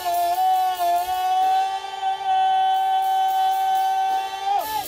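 Two voices holding long, steady wailing notes together, one pitched well above the other, then sliding down and breaking off near the end.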